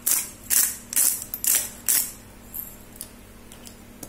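A hand-twisted pepper grinder cracking black peppercorns: about five gritty grinding strokes, roughly two a second, that stop about two seconds in.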